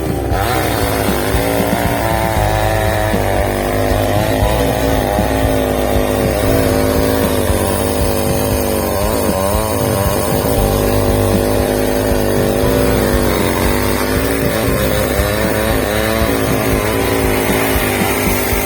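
Ibell chainsaw running steadily under load while cutting, its pitch wavering up and down throughout.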